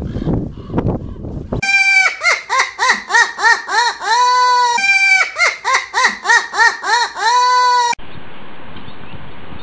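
A bird calling loudly over and over, about two rising-and-falling calls a second with two longer held calls among them. Before that come a couple of seconds of low knocks and rumble. The calls cut off abruptly near the end into a steady hiss.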